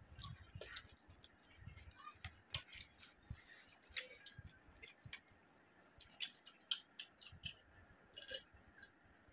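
Close-miked mouth sounds of eating rice and curry by hand: soft, irregular wet clicks and smacks of chewing, with swallows of a drink near the end.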